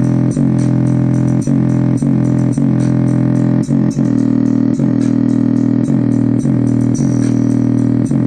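Bass-heavy music played loud through a loudspeaker, with regular sharp knocks from the driver's voice coil. The coil knocking is a sign the speaker is overdriven or damaged.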